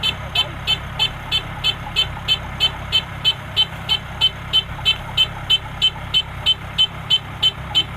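Combine harvester's engine running with a steady low hum, with rapid electronic beeping over it, about three beeps a second.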